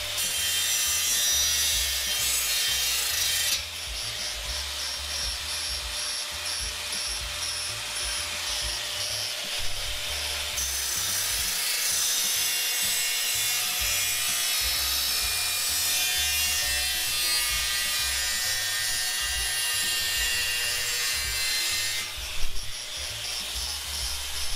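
Angle grinder with a thin cutoff wheel cutting through a sheet-metal motorcycle fender, a harsh high-pitched grinding. It comes in two passes: one in the first three or four seconds, and a longer one from about ten seconds to about twenty-two seconds. Background music with a steady beat runs underneath.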